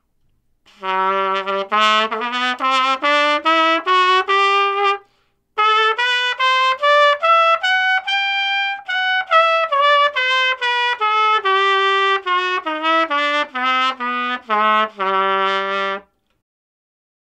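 Trumpet playing an A major scale over two octaves, each note tongued separately, climbing to a briefly held top note and coming back down. There is a short break for breath about five seconds in.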